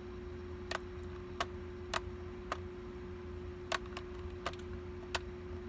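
A string of about eight short, sharp clicks at uneven intervals, over a steady faint electrical hum.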